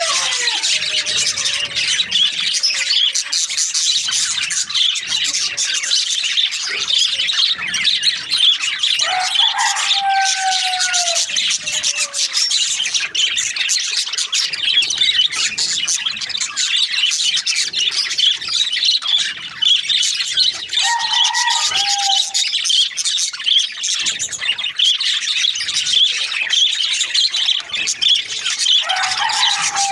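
A flock of budgerigars chirping and chattering continuously, a dense, unbroken twittering. A few longer, lower calls that fall in pitch stand out: one near the start, a long one about nine seconds in, another around twenty seconds in, and one near the end.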